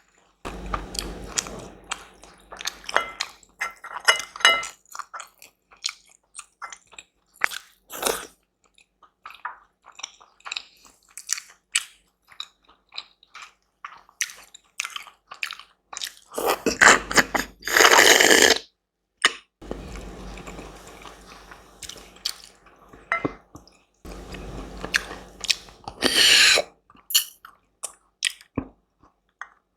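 Close-miked eating: chewing and biting food, with many short wet clicks and crunches. There are two longer, louder stretches, one a little past the middle and one near the end.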